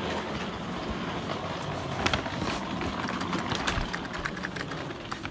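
A vehicle engine running steadily, heard as a low hum, with a couple of short knocks partway through.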